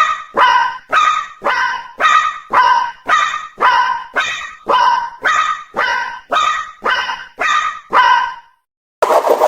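Japanese railroad crossing warning bell ringing its "kan-kan", about two strikes a second alternating between two close pitches, stopping about a second before the end.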